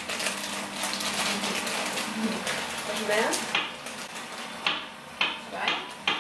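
Plastic food packet crinkling and rustling as it is handled and opened, with small clatters of kitchenware. A dense crackle for the first few seconds gives way to a few separate sharp crinkles near the end.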